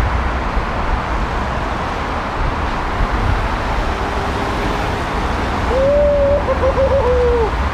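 Steady road traffic noise from the busy multi-lane road below. Near the end a wavering tone rises over it for about two seconds.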